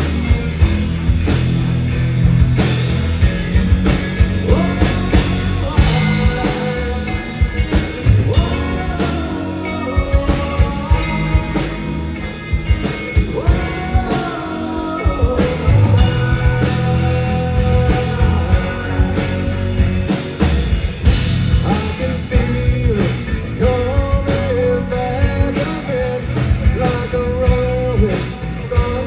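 A rock band playing live, with drum kit, electric guitars and bass, and a gliding melodic lead line over the top.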